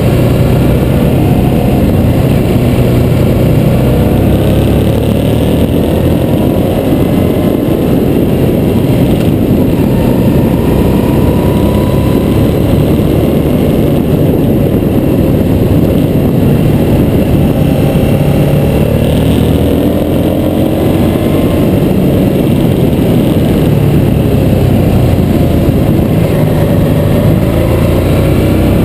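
Harley-Davidson V-twin motorcycle engine running under way, its revs rising and falling through the bends, with a heavy low rumble.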